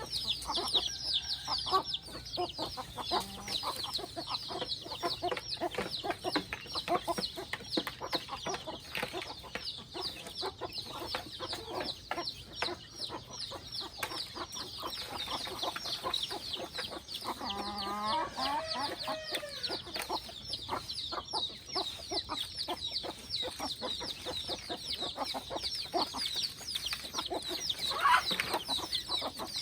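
A flock of chickens clucking and calling over a constant, rapid high chirping, with one longer call about two thirds of the way through and a louder one near the end.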